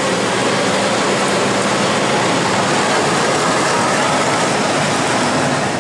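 Cream sauce with spaghetti bubbling and sizzling in a skillet over a gas flame as it reduces, a steady hiss.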